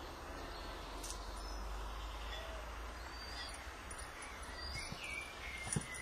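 Faint bird chirps over steady outdoor background noise, with a single knock near the end.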